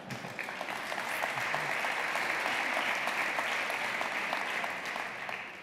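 Audience applauding: a dense patter of many hands clapping, which starts as the speech ends, holds steady, and fades away near the end.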